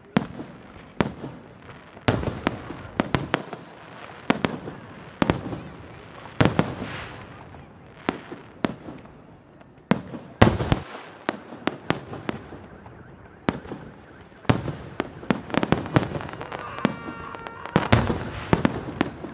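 Aerial firework shells bursting overhead in a salute display: sharp bangs at irregular intervals, sometimes several in quick succession, each followed by a rumbling echo.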